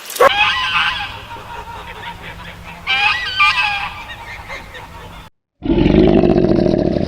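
Waterfowl honking in two bursts of calls, the first about half a second in and the second about three seconds in. After a short break, a louder, low, pulsing rumble from another animal starts near the end.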